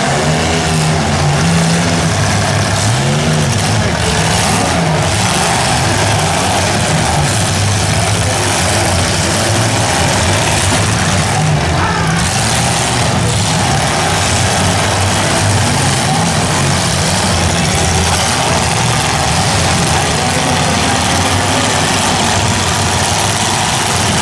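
Several compact demolition-derby cars' engines running together, revving and dropping back as the cars push and shove against one another, with a few bangs of cars hitting.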